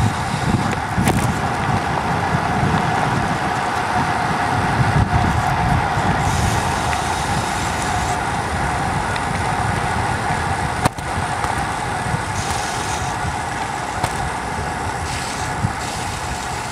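Wind buffeting the microphone of a bicycle-mounted camera on a fast downhill descent, with a steady hum under the rush. There is a single sharp click about eleven seconds in.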